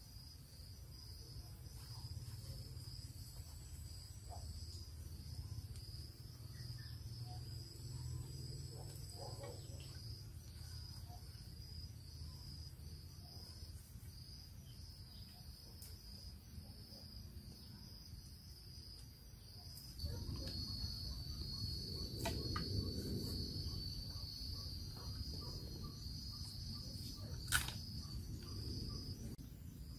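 Steady, high-pitched chorus of forest insects, a continuous pulsing whirr that grows louder about two-thirds of the way through. Faint knocks and rustles of handling wood and cord come and go, with one sharp knock near the end.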